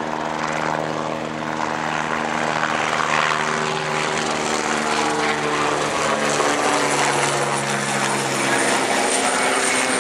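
Aerospatiale AS355N Twin Ecureuil helicopter passing low overhead: the rotor and engine drone grows louder as it comes over. Its engine tones slide lower in pitch from about halfway through as it moves away.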